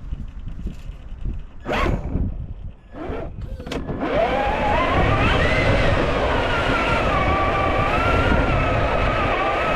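Electric motor and geared drivetrain of a Traxxas TRX4 1/10 scale RC crawler whining under throttle from about four seconds in, the pitch rising and falling with speed. Before that, low rumbling noise and two short bursts.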